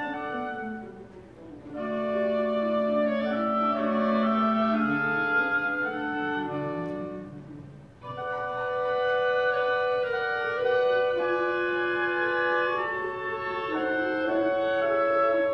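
Live symphony orchestra with strings playing sustained, slow-moving phrases. The music thins out briefly about a second and a half in and again about eight seconds in before the next phrase begins.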